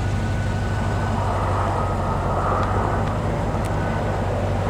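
Vehicle engine and road noise while driving, a steady drone at an unchanging pitch.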